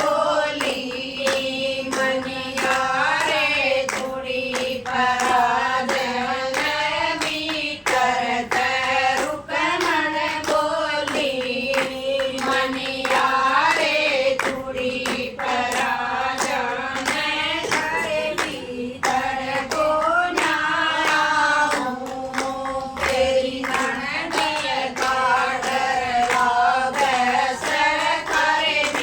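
Group of women singing a Haryanvi folk song in chorus, with steady rhythmic hand clapping keeping the beat, about two claps a second.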